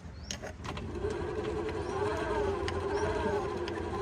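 Electric tricycle's rear drive motor and rear axle gear housing spinning with the rear wheel lifted, in climbing gear: after a few light clicks, a steady whine comes in about a second in, its overtones wavering slightly in pitch. The owner judges it a normal sound, not the strange noise heard when climbing hills.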